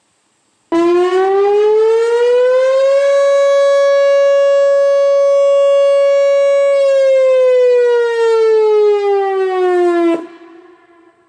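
Whelen Vortex R4 rotating electronic warning siren sounding its steady Alert tone for the daily noon test. The tone comes on suddenly, climbs in pitch for about two seconds, holds level, then slides back down and cuts off sharply, leaving a brief echo.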